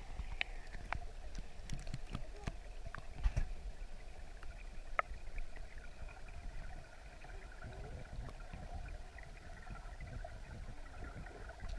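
Flowing river water heard underwater: a muffled low rush with scattered sharp clicks, most of them in the first half.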